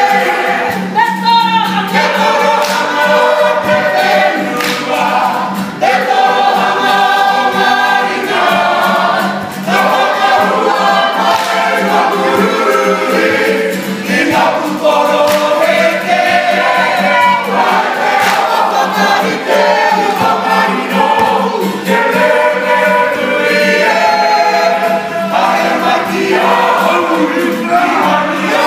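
Kapa haka group of women's and men's voices singing a Māori action song together, accompanied by an acoustic guitar.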